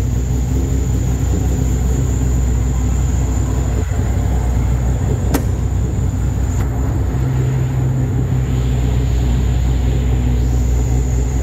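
Steady low rumble like an engine idling, with a couple of faint clicks in the middle and an added low hum joining a little past the middle.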